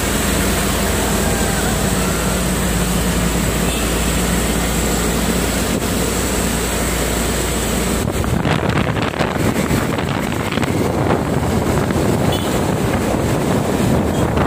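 Driving noise heard from a moving truck: a steady low rumble with wind rushing over the microphone. About eight seconds in the sound changes, the deep rumble dropping away and rougher, gusty wind buffeting taking over.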